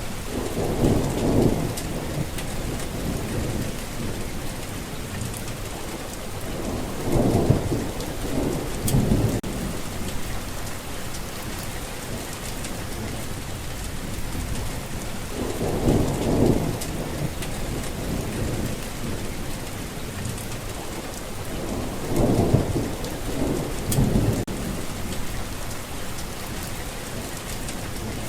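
Steady heavy rain falling on surfaces, with rolls of thunder rumbling low about half a dozen times, roughly every six to eight seconds.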